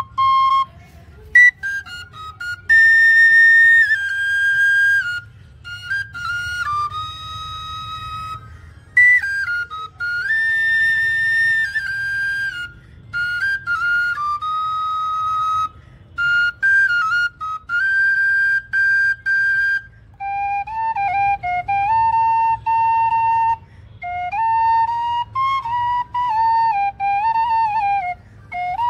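Bamboo bansuri flute, blown from the end, playing a folk-style melody of held notes and quick ornamented steps in short phrases separated by breath pauses. After about twenty seconds the melody drops to a lower register.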